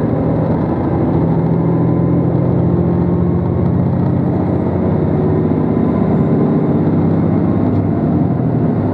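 JR Shikoku 2700 series diesel express train running at speed, its engines humming steadily under a thin, constant whine, heard from inside the passenger car.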